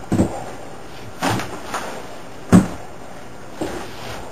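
A series of heavy thuds and bumps about a second apart, the loudest about two and a half seconds in.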